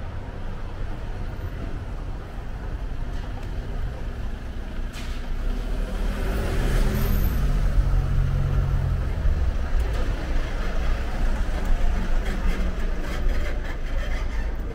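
A motor vehicle's engine running close by, rising in level about six seconds in and easing off some three seconds later, over a steady low rumble of street noise.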